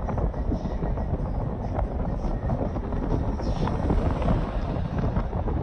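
Car driving along a road: steady tyre and engine rumble, with wind buffeting the microphone. A box van passes close by about four seconds in.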